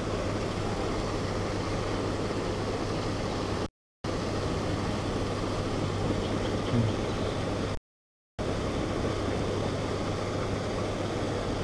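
Steady rushing noise with a low, even hum underneath, cutting out to silence twice for a split second.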